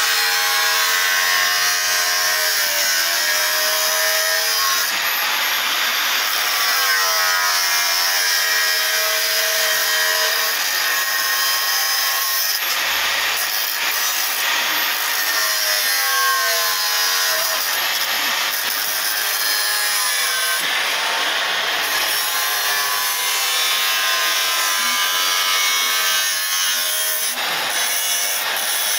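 A metal blade sawing through the plastic hub of a toy-car wheel: continuous rasping, with squealing tones that rise and fall as the blade binds in the plastic.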